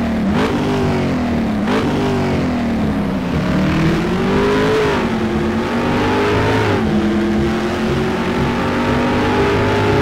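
Car engine revving: two quick blips, then accelerating with its pitch climbing and falling back twice before holding steadier and slowly rising.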